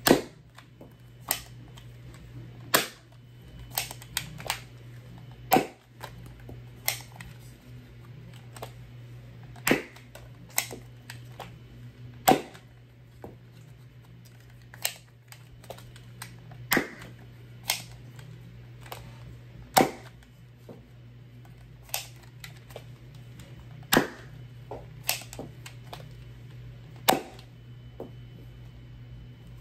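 X-Shot Tek 3 spring blaster being primed and fired again and again: about ten sharp snaps of the spring plunger, two to four seconds apart, with quieter clicks of priming between shots.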